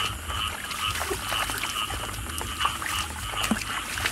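Frogs calling in a flooded field, short croaking calls repeating about twice a second, with a little splashing of hands moving through shallow muddy water.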